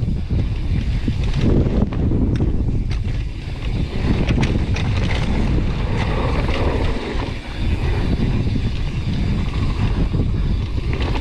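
Gale-force wind buffeting an action camera's microphone, a loud continuous rumble, with scattered sharp clicks and knocks between about one and five seconds in.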